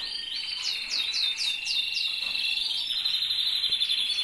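Canaries singing: continuous high song made of fast rolling trills and quick runs of repeated sweeping notes.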